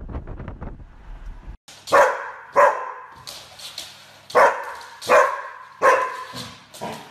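Wind buffeting the microphone from a moving car's open window, cut off abruptly after about a second and a half. Then a golden retriever barks at a remote-control toy car: about half a dozen loud, sharp barks in two runs, two and then three, with a couple of softer ones near the end.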